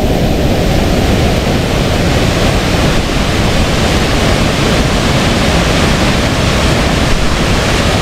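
Waterfall with fast-flowing water pouring over rocks into a pool: a loud, steady rush of water.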